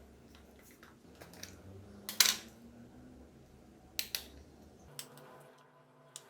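Small hard clicks and knocks of a plastic TV remote control being handled and worked on, with a louder scraping click about two seconds in and a quick double click near four seconds.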